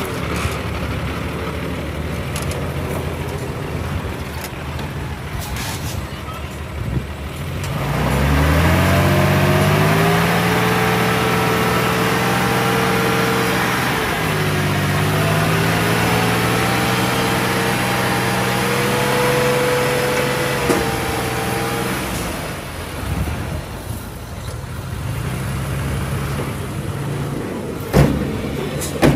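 Nissan dump truck's diesel engine idling, then revving up about eight seconds in and held high for over ten seconds, as for driving the hydraulic hoist that tips the loaded bed, before dropping back to idle. A few sharp knocks near the end as the soil slides out of the raised bed.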